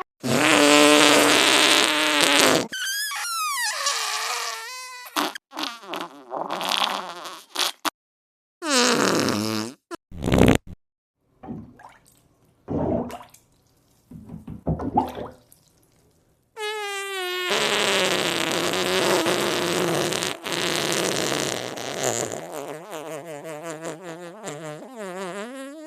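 A run of fart sound effects, one after another with short silent gaps: several short sputtering ones, some with a falling or wavering pitch, then one long fart lasting the last nine seconds or so, its pitch wobbling up and down.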